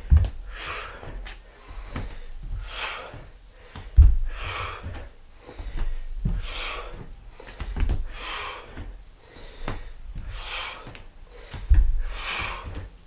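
A man breathing hard, with a forceful breath about every two seconds, and dull thuds of bare feet landing on a wooden floor during step-through lunges. The heaviest thuds come about four seconds in and near the end.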